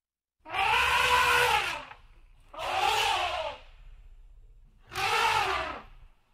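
An animal calling loudly three times, each call about a second long, with a harsh, rising-then-falling pitch.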